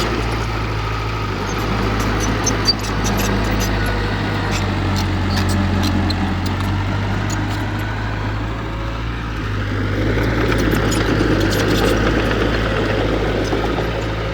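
Heavy diesel engine of an earthmoving machine running steadily, with scattered light ticks over it; it gets a little louder about ten seconds in.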